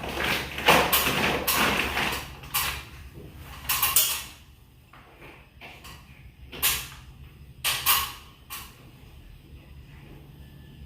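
Irregular clacks, knocks and creaks of things being handled, a burst of several in the first couple of seconds and then single knocks every second or two, over a faint steady low hum.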